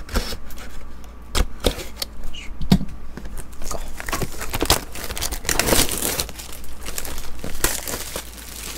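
A cardboard trading-card hobby box being torn open and its foil-wrapped packs pulled out. There are scattered sharp clicks and rustles at first, then a longer run of tearing and crinkling in the middle.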